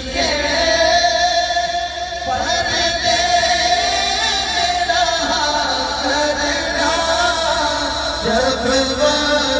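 A man singing a naat, an Islamic devotional song, with long, wavering held notes.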